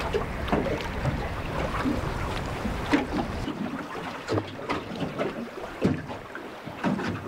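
Wind buffeting the microphone and choppy water slapping against the hull of a small aluminium boat, with irregular knocks. The low wind rumble drops away about halfway through.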